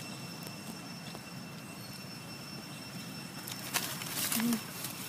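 Rustling and scuffing close by as a macaque moves over dry leaf litter, in a few loud bursts near the end, over a steady outdoor background with a faint high steady tone.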